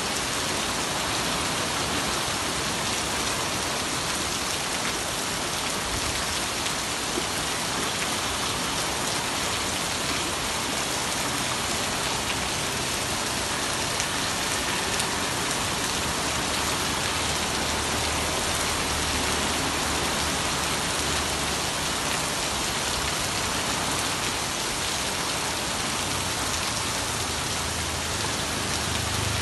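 Heavy rain falling steadily on a paved street and a shop awning, an even, dense hiss of drops with water running off the awning edge.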